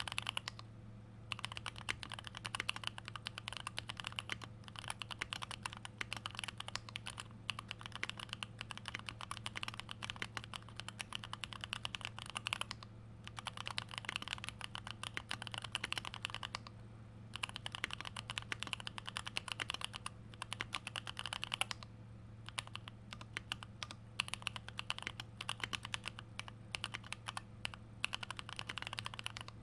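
Typing on a custom 75% mechanical keyboard with lubed original Holy Panda tactile switches and GMK stabilizers: fast runs of key clacks, broken by a few short pauses.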